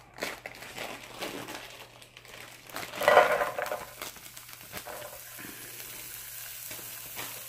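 Plastic bag of sugar snap peas crinkling in the hands, then the peas tumbling out into an oil-sprayed skillet about three seconds in with a loud clatter, followed by a steady sizzle as they start to fry.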